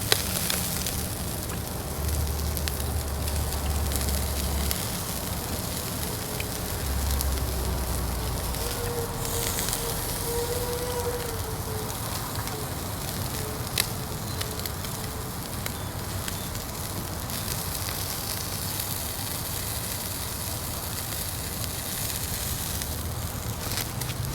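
Fire burning in a Uniflame Fire Grill fire stand: a steady crackling hiss with a couple of sharp pops, one at the start and one about two-thirds of the way through.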